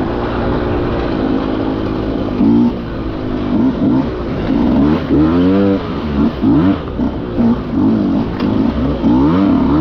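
Dirt bike engine heard from an on-bike camera: running at a steady note at first, then from about two and a half seconds in revved in quick repeated bursts, its pitch rising and falling with each twist of the throttle.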